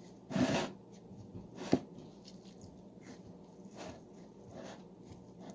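Hands squeezing and kneading wet bread dough in a bowl: a few soft, wet squishes, with one sharp click a little under two seconds in.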